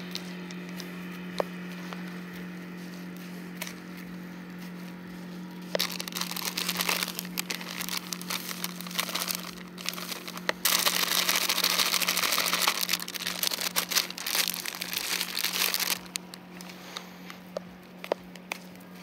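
Hands working a damp mix of boiled millet and dry groundbait in a plastic bucket, with a plastic groundbait bag crinkling. It is loudest from about ten to sixteen seconds in, as dry groundbait is poured from the bag into the bucket. A steady low hum runs underneath.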